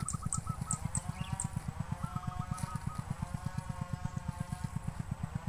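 A small engine running steadily, with a rapid, even low thudding. A motor vehicle's drone rises and falls in the background, and a bird gives short rolling trills twice.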